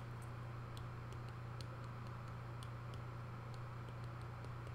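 Faint, irregular ticks of a stylus tapping and writing on a tablet screen, over a steady low electrical hum.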